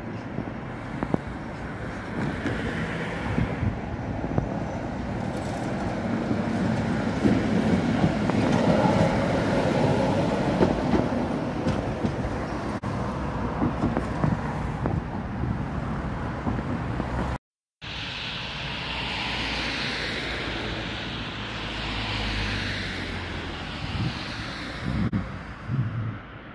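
Konstal 105Na tram running in over its rails, a rumbling clatter with many clicks and knocks, loudest around the middle. It cuts off abruptly about two-thirds through and gives way to a steadier, hissier street sound with a low hum.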